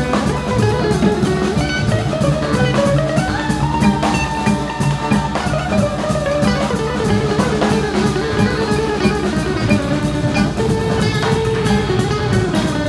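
Live ensemble music from drum kit, bowed violin and sitar over a bass line: steady drumming and cymbals under a melody that slides up and down in pitch.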